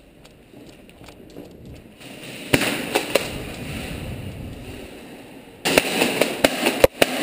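Airsoft guns firing: a few sharp snaps about two and a half seconds in, then a sudden louder, denser volley of cracks from about five and a half seconds.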